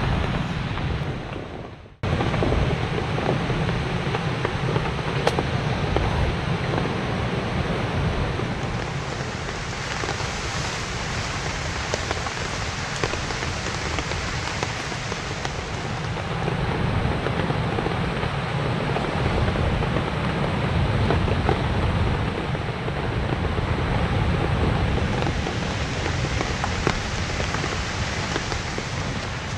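Steady, dense rushing of water in typhoon weather. The sound fades away and cuts off about two seconds in, then comes straight back.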